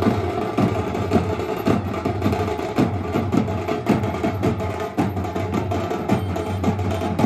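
A band of hand-carried drums played together in a fast, steady rhythm, with sharp repeated strikes over a constant deep rumble.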